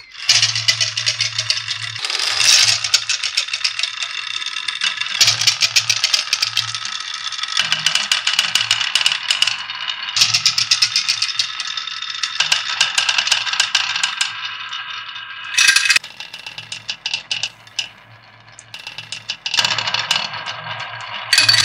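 A stream of coloured balls rolling and clacking down grooved wooden marble-run tracks: a fast, continuous rattle of many small knocks, easing off for a moment and ending in a couple of short, louder bursts of clatter.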